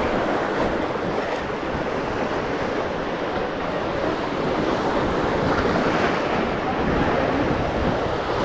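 Sea surf washing and breaking over shoreline rocks: a steady rushing noise, with wind buffeting the microphone.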